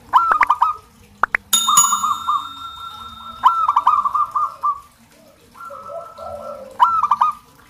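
Zebra doves (perkutut) calling: three bursts of quick, rolling cooing notes, at the start, a longer run from about a second and a half in, and again near the end. A sharp ringing, bell-like tone sounds about a second and a half in.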